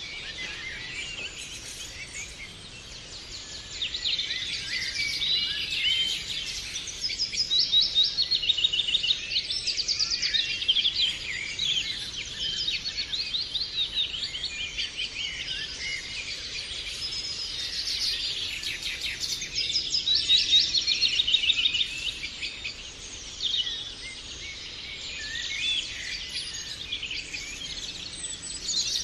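Many birds chirping and trilling at once in a dense, continuous chorus of high calls, with rapid rattling trills among the chirps.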